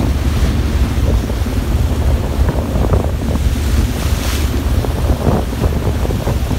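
Wind buffeting the microphone in a heavy, steady rumble over the rushing, churning wake water beside a moving ship, with a brief louder hiss of water about four seconds in.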